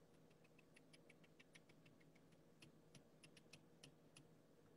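Near silence: room tone with a run of faint, irregular light clicks that stops near the end.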